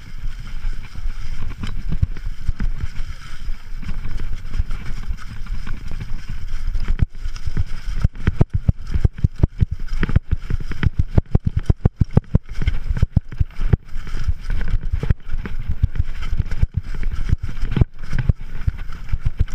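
Mountain bike clattering and rattling over rocks and roots on a rough trail descent, picked up by a camera riding on the bike, over a steady low rumble of ride noise. The knocks come thick and fast from about seven seconds in.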